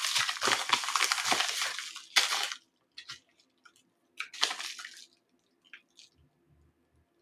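Sticker-pack wrapping crinkling and rustling as it is handled and opened: a dense crackle for the first two and a half seconds, then a few scattered rustles and light taps.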